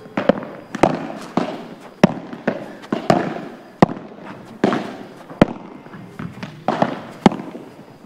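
Padel ball being hit back and forth: about a dozen sharp pops of rackets striking the ball and the ball bouncing, each with a short echo.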